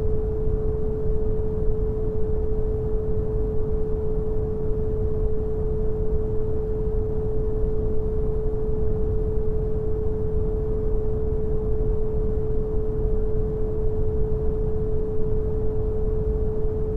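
Synthetic brown noise, a steady deep hiss, with a pure 432 Hz sine tone held unchanging over it.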